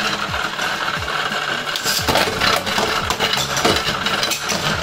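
Plastic Beyblade spinning tops whirring and clattering against each other and the plastic stadium walls, with many quick clicks and knocks, over the steady whir of the stadium's motorized spinning centre disc.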